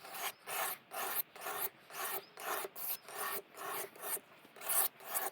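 Kitchen knife blade scraped back and forth across the smooth side of an aluminium oxide sharpening stone, in quick even strokes about two a second, honing the edge.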